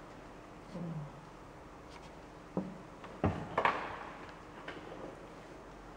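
A few small clicks and knocks from a paintbrush and porcelain paint dishes being handled. The loudest is a pair about three and a half seconds in, followed by a brief scratchy sound, and there is a short low murmur about a second in.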